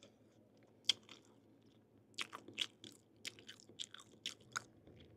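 Close-miked mouth sounds of biting and chewing crunchy fruit. There is one sharp crunch about a second in, then a run of crisp crunches, two or three a second, through the second half.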